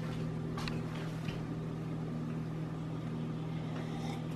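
A steady low hum of room tone, with a few faint light clicks as drinking glasses are handled.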